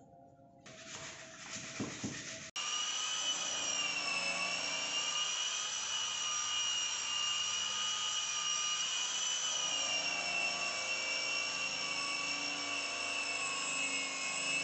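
An electric power tool's motor running at steady speed, a high whine that wavers slightly in pitch. It cuts in abruptly about two and a half seconds in, after a shorter, quieter stretch of rougher tool noise.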